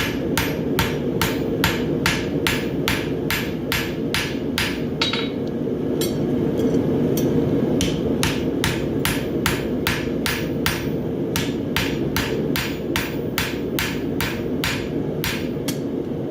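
Hand hammer striking a hot steel bar shoe on an anvil, about three blows a second, forge-welding the bar joint. The blows let up for a couple of seconds about five seconds in, then resume. A steady hum runs underneath.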